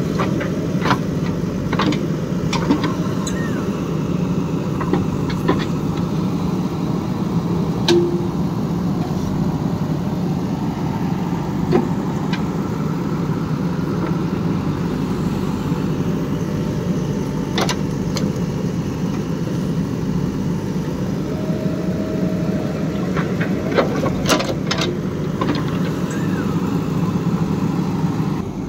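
JCB 3DX Super backhoe loader's diesel engine running steadily under digging work, with scattered sharp knocks and clicks from the backhoe arm and bucket working in wet mud.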